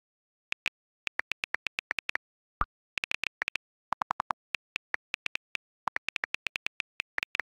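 iPhone on-screen keyboard key clicks: quick, irregular taps as a message is typed, with WhatsApp's short message-sent sound about two and a half seconds in.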